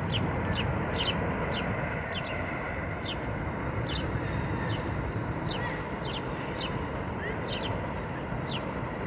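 Small birds chirping repeatedly in short, high chirps over a steady low rumble.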